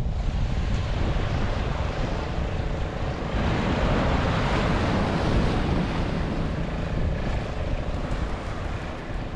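Wind rumbling against the microphone by the sea, with a rush of surf swelling in the middle.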